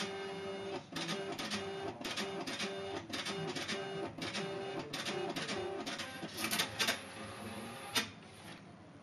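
Kiosk's built-in slip printer printing, a rhythmic mechanical chatter with a repeating stepped tone, ending just before seven seconds in with a few louder strokes. A single sharp click follows about eight seconds in, as the printed slip is taken from the slot.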